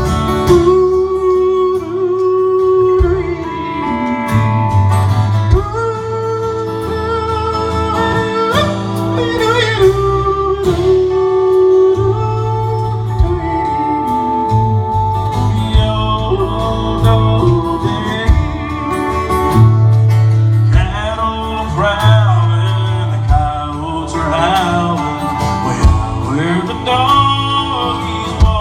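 Country song: a voice sings a slow melody with long held notes over an acoustic guitar accompaniment.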